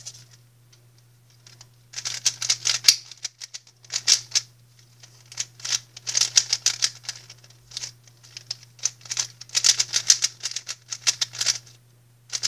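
GAN 356 Air SM magnetic 3x3 speedcube being turned fast during a solve: rapid bursts of plastic clicking and clacking, starting about two seconds in and broken by short pauses.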